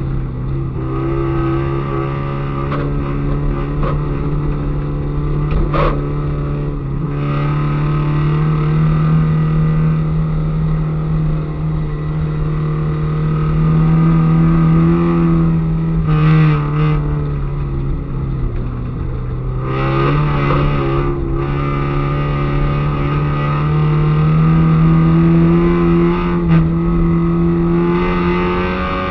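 Peugeot 205 Mi16 rally car's 16-valve four-cylinder engine, heard from inside the cabin, running hard at high revs on a snowy stage. Its pitch climbs slowly through long pulls and dips briefly about two-thirds of the way through before climbing again.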